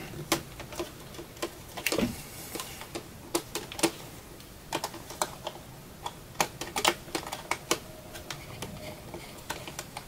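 Irregular light clicks and taps from a small screwdriver and plastic parts on the underside of an HP ProBook 6360b laptop as the cooling fan is fitted and screwed back in.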